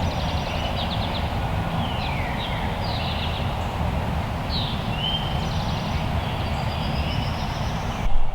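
Songbirds chirping and trilling in woodland, several short calls overlapping, over a steady low rumble. Near the end a brief loud burst, after which the background changes abruptly.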